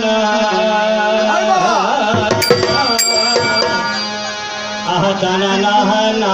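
Kobigan folk music: a held melody line and a gliding voice over drums. Two sharp, ringing strikes come about two and a half and three seconds in.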